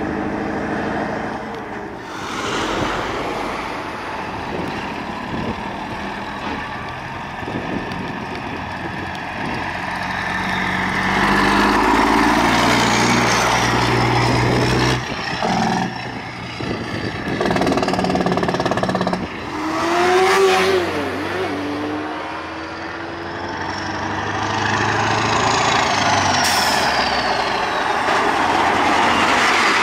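Big-rig diesel engines on open exhaust stacks driving past one after another: a Peterbilt cabover tractor, then a Mack Superliner coming up under power. A short wavering horn-like tone sounds about two-thirds of the way through.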